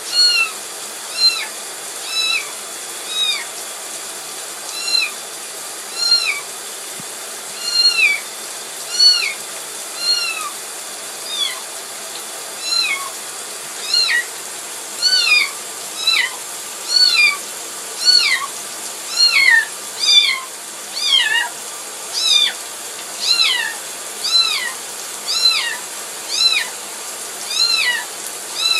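A kitten meowing in distress while being bathed, with a long run of short, high-pitched rising-and-falling cries. They come about once a second at first and quicken to more than one a second in the second half.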